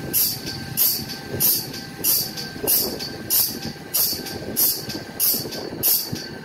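Automatic band saw blade sharpening machine running, its grinding wheel working the blade one tooth per stroke: a short high-pitched grind repeating evenly, about three strokes every two seconds, over the steady running noise of the machine.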